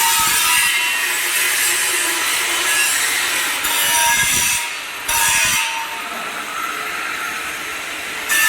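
Angle grinder grinding a steel pipe: a harsh rasping hiss with a whine that shifts in pitch as the disc takes load, dropping briefly a little before halfway and running quieter through the second half.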